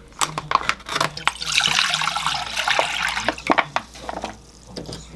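Kitchen scissors snipping open a pouch of bone broth, then the broth pouring and splashing into a saucepan for about two seconds.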